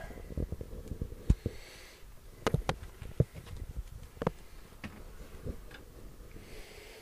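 Handling noise: a few light, irregular clicks and knocks, about half a dozen spread over several seconds, in a small enclosed space.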